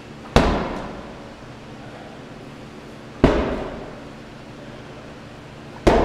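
A medicine ball is slammed onto the turf floor three times, roughly three seconds apart, in rotational slams. Each hit is a sharp thud with an echoing tail.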